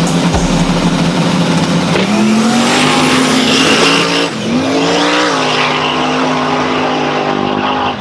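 Race car engine running hard with a steadily rising pitch, a sudden short dip about four seconds in, then climbing again and holding steady.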